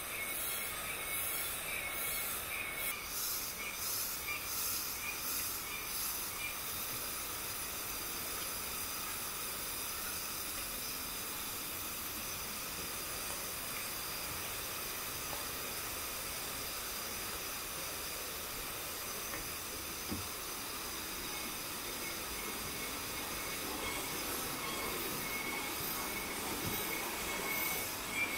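Forest insects buzzing in a steady high chorus over an even hiss, the chorus pulsing quickly near the start and again near the end.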